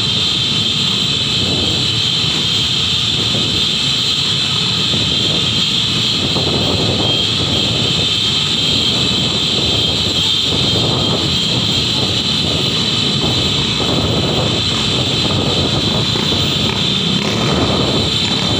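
Steady, loud traffic and engine noise heard from a moving vehicle in slow city traffic crowded with motorcycles and cars, with a constant high whine over a fluctuating low rumble.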